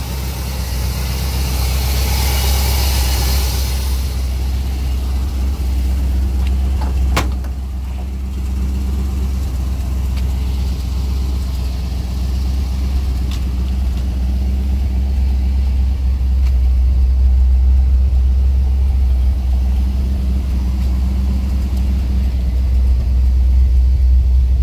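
1962 Chevrolet C10 pickup's engine idling steadily, with a sharp click about seven seconds in.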